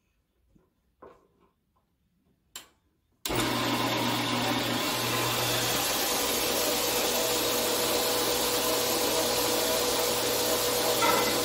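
A few light clicks, then about three seconds in a 4x6 horizontal metal-cutting bandsaw switches on suddenly and runs steadily, its blade cutting aluminium stock held in the vise.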